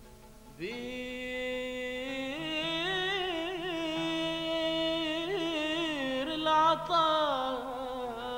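A solo voice sings one long held phrase without clear words. It slides up into the note about half a second in, wavers through quick ornamented turns, and falls away near the end. A faint low steady tone runs beneath it.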